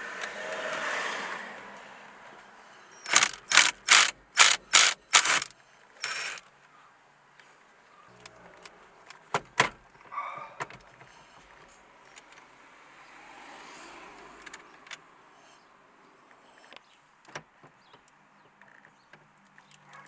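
Cordless impact driver running on a steering-wheel centre nut, then hammering in six short bursts with one more shortly after, to break the nut loose. Scattered clicks and knocks follow as the wheel is worked off the column.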